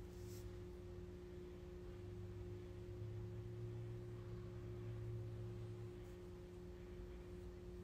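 Faint steady low hum, several held tones with no change, with a short tick shortly after the start.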